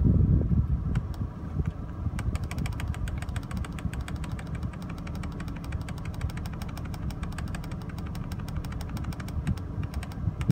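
Fast, even ticking, about ten ticks a second, beginning about two seconds in, while the minute button on a 2006 Honda Ridgeline's factory radio is held down and the clock's minutes scroll forward. A low steady rumble lies underneath, and a bump sounds at the very start.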